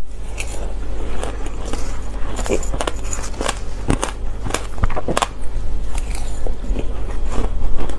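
Crushed ice mixed with passion fruit pulp crunching as it is chewed, in many sharp, irregular crunches, along with a metal spoon scooping in a steel bowl. A steady low hum runs underneath.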